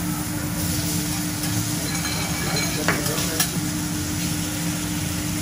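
Seafood sizzling on a hot teppanyaki steel griddle while metal spatulas scrape and turn it. Two sharp metal clicks about half a second apart come a little past halfway.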